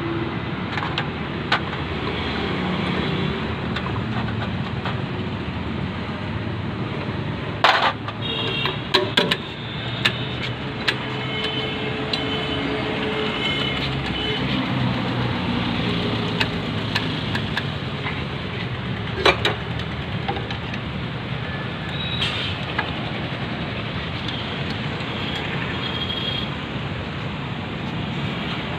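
Metal tools and injection-pump parts clinking and clicking a few times, some with a brief metallic ring, over a steady low rumble.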